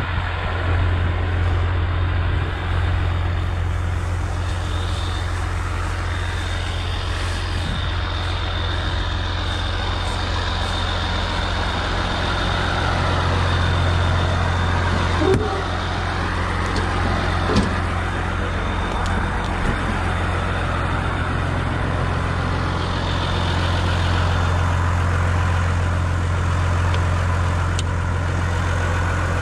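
Massey Ferguson 6180's straight-piped diesel engine running steadily, with a thin high whine over it. Two short knocks come a little past halfway.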